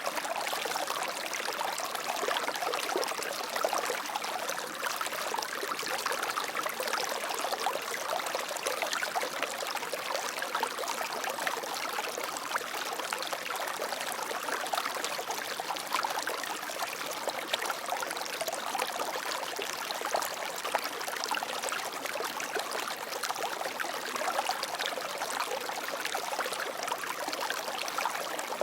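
Water flowing steadily over stones in a stream, an even rushing and splashing without let-up.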